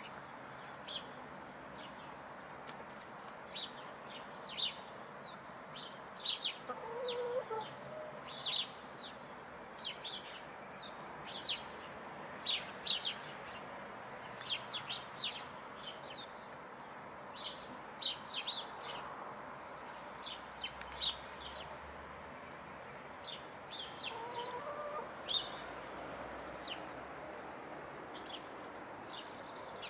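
Hens in a run giving a few soft clucks, once about a quarter of the way through and again about four-fifths through, over many short, high chirps from small birds.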